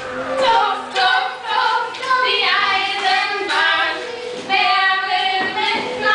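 A group of voices singing a song together in short phrases.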